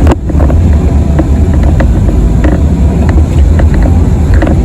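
Kobelco SK85 excavator's diesel engine running steadily, heard from inside the cab, with scattered clanks and rattles over it.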